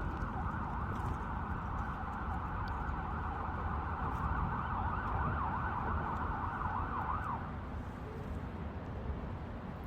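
An emergency vehicle siren sounds over a steady low traffic rumble. About four seconds in it switches to a fast rising-and-falling yelp, then stops a little after seven seconds in.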